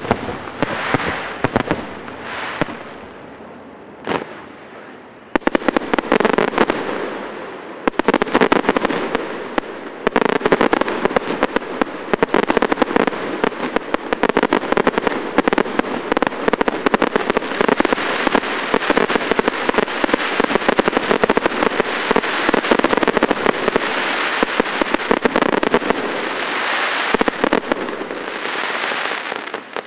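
Fireworks display: a few scattered bangs with fading crackle, then from about five seconds in a dense barrage of rapid bangs and crackling that goes on without a break.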